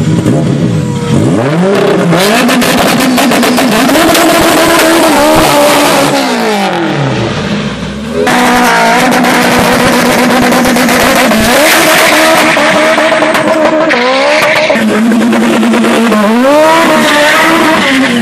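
Turbocharged street-race cars revving hard at the start line, the engine pitch climbing and dropping again and again, with a short lull about two thirds of the way through the first half. Tyres spinning in a burnout that sends up smoke.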